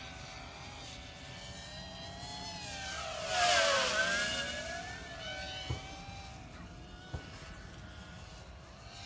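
C220R2-SE racing quadcopter's brushless motors and propellers whining in flight. The whine swells to a loud rush as it passes overhead about three seconds in, then drops in pitch and fades. Two short taps follow later.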